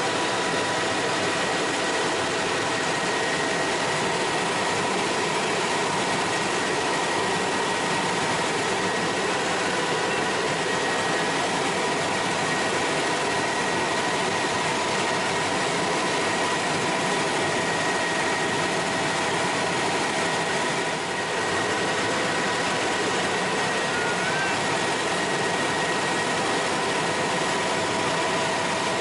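Bell 206L4 LongRanger helicopter in steady cruise, heard from inside the cabin: an even noise from the turbine engine and rotors with a constant whine held at a few fixed pitches.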